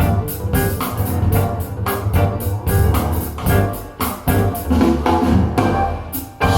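Music with drum kit, bass guitar and guitar and a steady beat, played back through PSB Alpha P5 bookshelf speakers.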